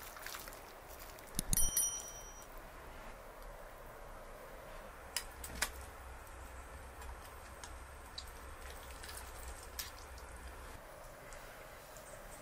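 Metal cutlery clinking against a metal serving platter and ceramic bowls while meat is cut and eaten: a quick cluster of clinks with a brief metallic ring about two seconds in, then a few scattered single taps.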